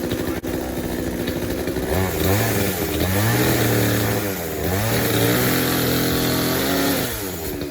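Blue Max two-stroke gas chainsaw idling, then revved up twice about two seconds in, with a brief dip between, before dropping back to idle near the end.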